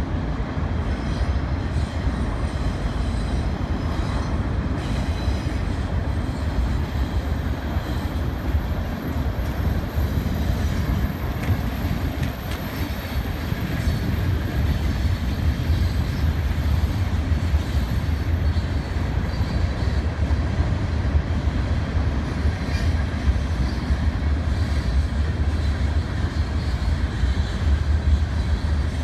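Freight train cars rolling past: a steady low rumble of steel wheels on the rails, with some clickety-clack over the rail joints.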